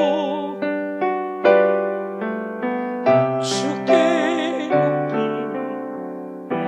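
Electric piano playing slow, gentle worship accompaniment, chords struck about once a second and left to fade.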